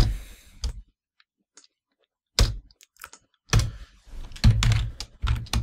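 Typing on a computer keyboard: a few scattered keystrokes, a near-silent pause, then a quickening run of keystrokes through the second half.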